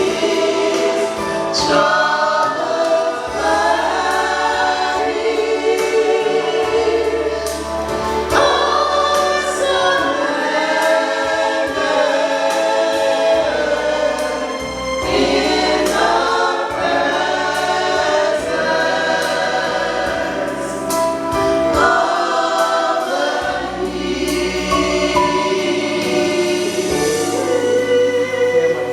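Choir singing a gospel hymn over low bass accompaniment.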